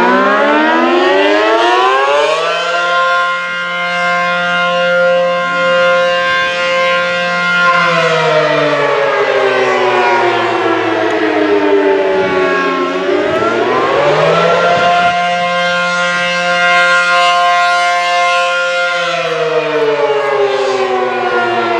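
ACA Allertor 125 electromechanical outdoor warning siren sounding a wail: the tone climbs, holds steady for several seconds, slides down about halfway through, climbs again and holds, then begins to fall near the end.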